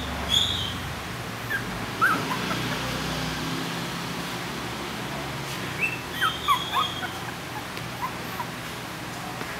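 Very young Maltese–Shih Tzu puppies giving short, high squeaks and whimpers: a few scattered squeaks, then a quick run of several about six to seven seconds in.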